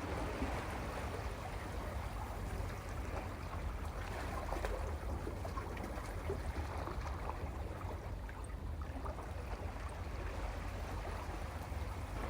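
Sea waves washing over a rocky shore: a steady wash of water with small crackles and trickles among the rocks, over a low rumble.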